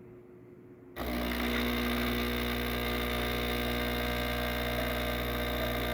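DeLonghi espresso machine starting up and running with a steady mechanical buzz, switching on abruptly about a second in, during a pressure test for leaks.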